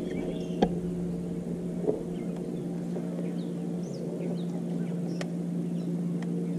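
Bow-mounted electric trolling motor humming steadily, with short high chirps of small birds over it and a few light clicks.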